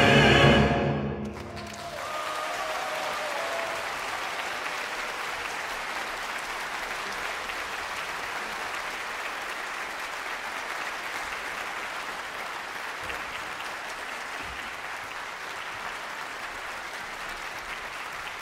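The final held chord of orchestra and choir breaks off about a second in, and a concert-hall audience applauds steadily from then on.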